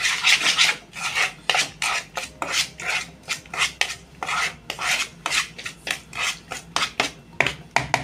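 Metal fork scraping and stirring chopped vegetables and spices around a plastic mixing bowl, a quick run of rasping strokes, a few a second.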